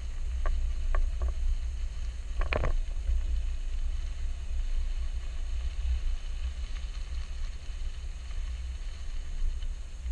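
Low, steady wind and road rumble on a camera mounted on the body of a vehicle rolling slowly over a gravel lot on Kumho Road Venture AT51 all-terrain tyres. A few sharp ticks come early, then a louder clatter of clicks about two and a half seconds in.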